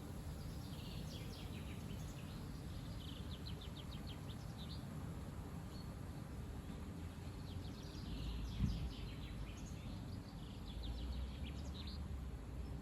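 Strong gusty wind buffeting the microphone as a steady low rumble, with a harder gust about two-thirds of the way through. Over it a small bird chirps in quick high runs, twice.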